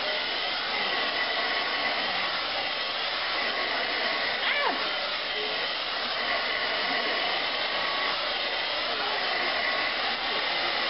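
Handheld hair dryer running steadily, blowing onto hair wound on a round brush: an even rush of air with a thin steady whine.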